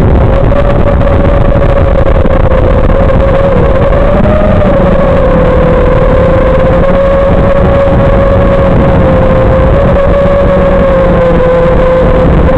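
FPV drone's electric motors and propellers whining steadily, the pitch wavering slightly with throttle and rising briefly about four seconds in, over a heavy rushing noise.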